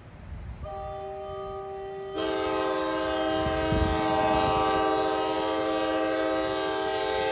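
Locomotive multi-chime air horn sounding one long blast of a chord of several notes, soft at first and then much louder about two seconds in, held for about five seconds before cutting off. Likely sounded for the grade crossing ahead of an approaching train.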